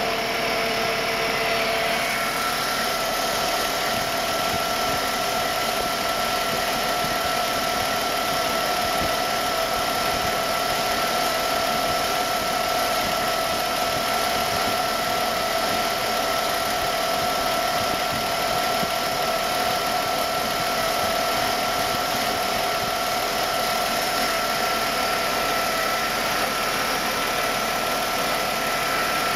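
Mercedes-Benz M104 2.8-litre straight-six idling steadily after a cold start, with a steady whine over the engine noise whose pitch shifts about two seconds in. The secondary air injection system is still in its run four and a half minutes after start, where it should stop after about 90 seconds: a fault the owner has not been able to trace.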